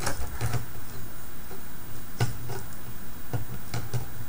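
Handling noise: irregular light clicks and knocks as a sensor panel and its bundle of wires are handled and fitted onto a pan-tilt mount.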